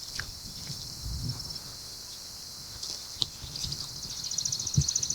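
A bird sings a high, rapid trill, about a dozen notes a second, starting about three and a half seconds in, over scattered low dull thumps.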